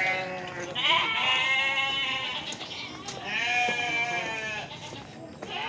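Penned livestock bleating repeatedly: a series of long, wavering bleats, one every couple of seconds.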